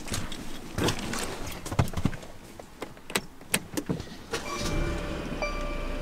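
Clicks and knocks of handling inside a Mercedes C300's cabin. From about four and a half seconds, a low steady hum and a short electronic chime repeating about once a second, typical of the car's warning chime with the door open.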